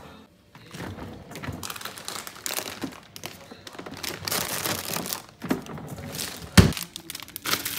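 Plastic grocery bags rustling and crinkling as they are handled, with one heavy thunk about six and a half seconds in.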